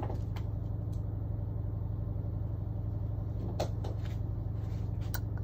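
A steady low hum from some running machine, with a few light clicks from tools and parts being handled.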